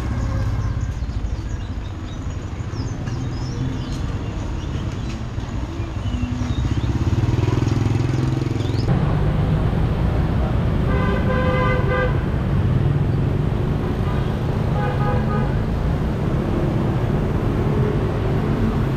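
City street traffic running steadily, with a vehicle horn honking twice: a longer blast a little past halfway and a shorter one a few seconds later.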